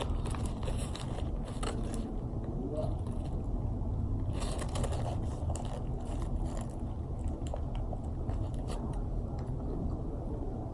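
Someone biting into and chewing a crispy fried chicken sandwich, with scattered crunches over a steady low background rumble.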